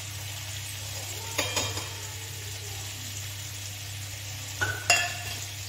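Potato pieces sizzling steadily as they fry in mustard oil in an aluminium kadai. Short metallic clinks about a second and a half in and again near the end.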